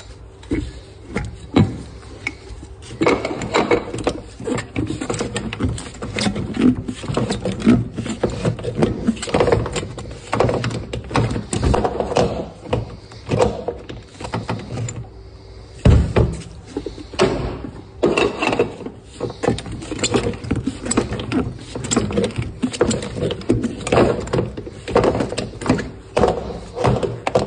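Go-kart tyre being levered onto its rim with a steel tyre-mounting bar: irregular knocks and clatters of metal on the rim and bench, with scraping and rubbing of the rubber bead between them. Briefly quieter a little past halfway, then a sharp knock.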